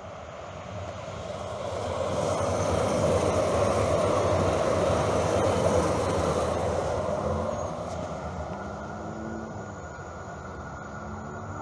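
A vehicle passing by: a steady rolling noise that builds over the first few seconds, holds, then fades away, with a faint low hum shifting in pitch near the end.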